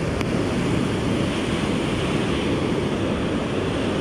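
Ocean surf breaking and washing up the beach in a steady rush, with wind on the microphone.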